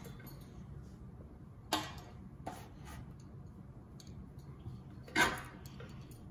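Quiet room tone broken by a few short sounds: a brief child's vocal sound about two seconds in, a softer one soon after, and a louder short child's utterance about five seconds in.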